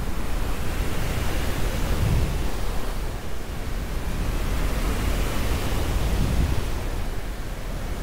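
Loud rush of wind over the microphone of a harness-mounted camera as a paramotor pilot swings through steep acro turns. The rush swells and eases a little as the manoeuvres change the airspeed.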